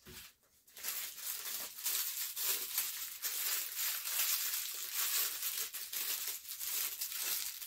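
Plastic packaging crinkling and rustling as it is handled and pulled open, a continuous crackle starting about a second in.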